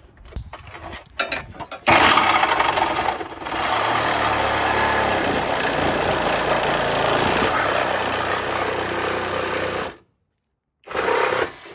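A few small clicks and knocks, then about two seconds in a power tool starts loud and runs steadily for about eight seconds before cutting off suddenly.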